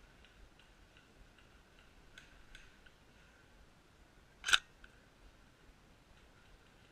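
Faint scattered clicks and ticks, with one sharp snap about four and a half seconds in.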